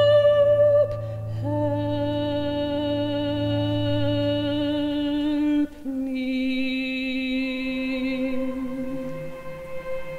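Slow contemporary orchestral music of long held notes with vibrato. The music drops in loudness about a second in and moves to new sustained notes about a second and a half in and again about six seconds in.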